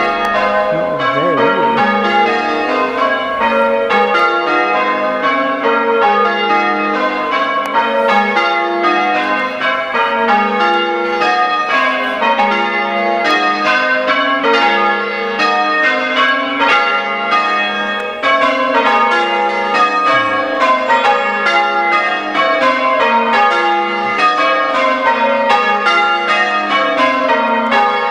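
A ring of six church bells rung in changes: an unbroken, even succession of bell strikes, one bell after another in repeating descending rows.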